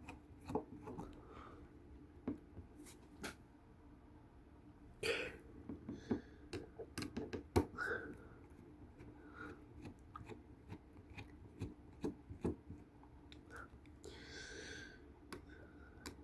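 Faint, scattered clicks and ticks of a small screwdriver working the tiny screws out of a Samsung Galaxy A5 (2016) phone's internal frame, busiest from about five to eight seconds in, with a short rustle near the end.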